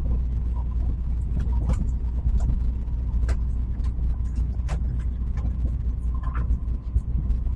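Steady low rumble of a Tokaido Shinkansen train running, heard inside the passenger cabin, with scattered faint clicks.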